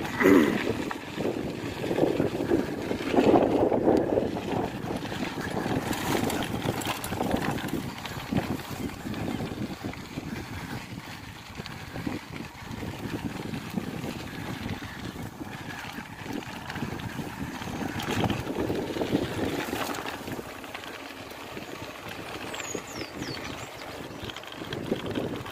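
Wind buffeting the microphone while a bicycle rolls along a bumpy dirt trail, with scattered knocks and rattles from the bike over the ruts.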